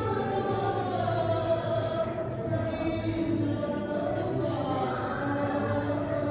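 Music of several voices singing together in long held notes, without a clear beat.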